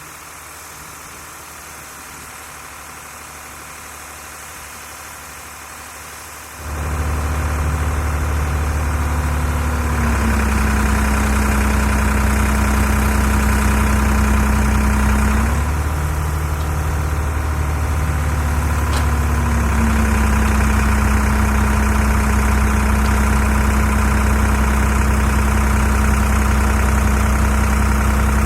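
Doosan DX35z mini excavator's diesel engine running. It jumps suddenly from a low, quiet hum to a loud, steady drone about six seconds in, then shifts in pitch a few times as the machine works.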